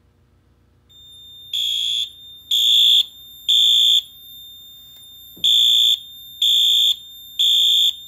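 Wheelock AS-2475 fire alarm horn sounding in the temporal-3 evacuation pattern: three loud, even half-second blasts, a pause of about a second and a half, then three more. A steady high whine runs underneath from about a second in. The alarm was set off by the Notifier photoelectric smoke detector, which was tripped with aerosol test spray.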